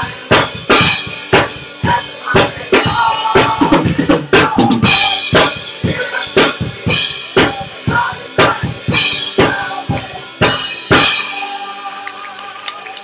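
Drum kit playing a fast, steady beat of about two hits a second, with bass drum and snare, stopping about eleven seconds in.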